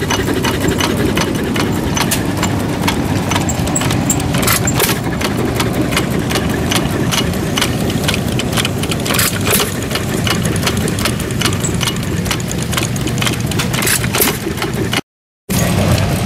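Old engines running together: a steady low rumble under a dense, uneven clatter of knocks and clicks. The sound cuts out completely for about half a second near the end.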